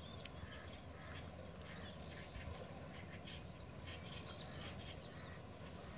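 Faint outdoor ambience: a steady low rumble with scattered short, faint bird chirps.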